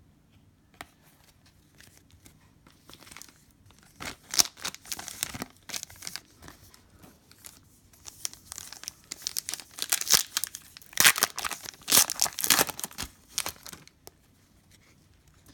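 Plastic wrapper of a Panini Prizm basketball card pack being torn open and crinkled, in irregular crackly bursts from about four seconds in, loudest near the end.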